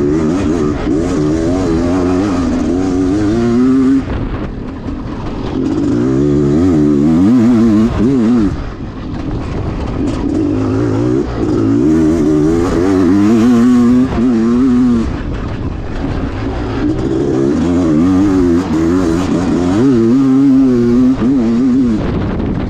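Honda CR500's big single-cylinder two-stroke engine ridden hard. Its pitch wavers up and down as it pulls, and the note drops away briefly four times between pulls.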